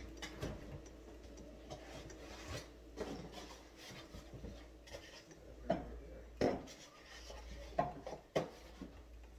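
Rummaging at an open refrigerator: scattered knocks, rubbing and light rattles as things are moved about. Four sharper clacks come in the second half.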